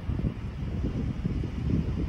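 Wind buffeting the microphone, a gusty low flutter.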